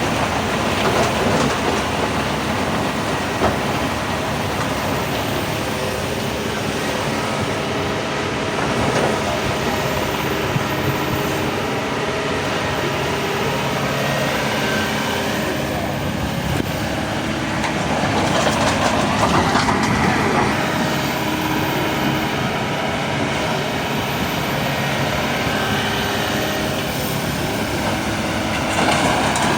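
Excavator working: the diesel engine runs steadily under a continuous metallic rattle, with the noise swelling louder for a couple of seconds about two-thirds through and again near the end.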